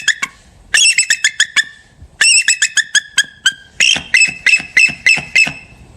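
A bird calling in three quick runs of short, sharp, high-pitched notes, several notes a second, with brief pauses between the runs.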